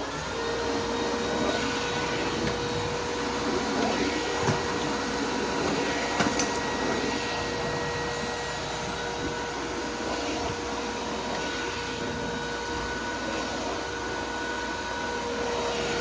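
Makita 40V max XGT VC005G cordless dry vacuum cleaner running steadily just after being switched on, a steady motor whine over a rush of air.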